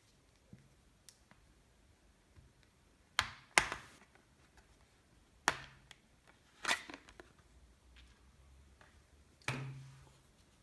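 LG G4 smartphone's plastic back cover being prised off by fingernail, its clips letting go in about five sharp snaps spread over several seconds, the loudest about three and a half seconds in.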